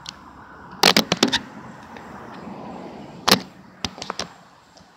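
Handling noise of a camera being moved and set down on a surface: a quick cluster of sharp knocks about a second in, one louder knock just past three seconds, and a couple of lighter taps soon after.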